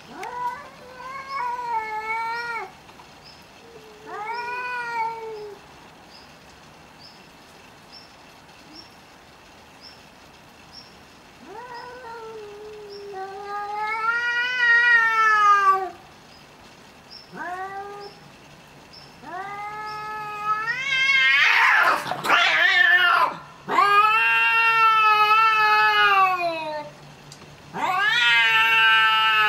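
Domestic cats caterwauling at each other in an aggressive standoff: long, drawn-out, wavering yowls that rise and fall in pitch, coming in a run of separate calls that grow louder and closer together. About two-thirds of the way through, a short harsh noisy outburst breaks in as the cats come to grips.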